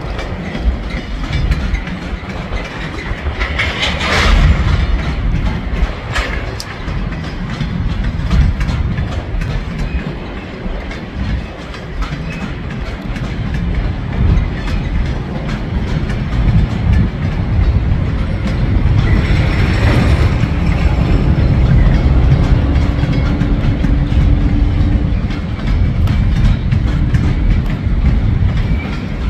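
Empty steel coal hopper cars of a freight train rolling past with a steady rumble, their wheels clicking over the rail joints. There are two brief louder surges of noise, about four seconds in and about twenty seconds in.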